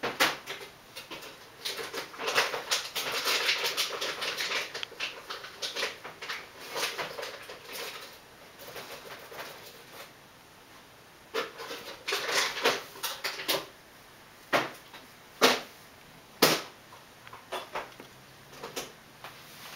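Rustling and scratching from a litter of kittens wrestling on a towel, with scattered sharp clicks and taps. The scuffling is dense for the first several seconds, then thins to occasional louder clicks.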